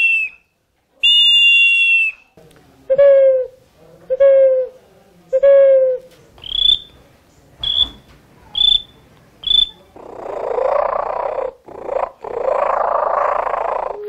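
Handmade ceramic animal-call whistles blown one after another: a high two-note whistle twice, then three short calls that drop in pitch, then four short high chirps, and near the end two long raspy hissing blasts.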